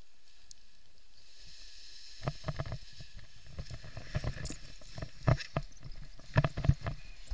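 Footsteps of a paraglider pilot running down stony mountain ground on a forward launch, irregular heavy thuds starting about two seconds in and growing louder toward the end, over a steady rush of wind.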